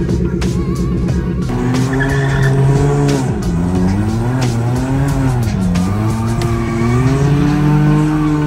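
Car engine with a lumpy, pulsing idle that is revved up about a second and a half in and held at high revs, its pitch sagging twice and climbing back, with tyre squeal: a burnout.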